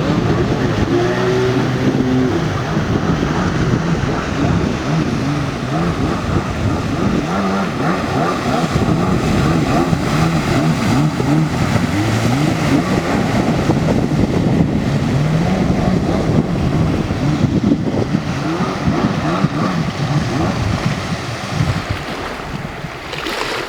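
Jet ski engine running and revving, its pitch rising and falling again and again as the throttle changes, over a constant rush of water.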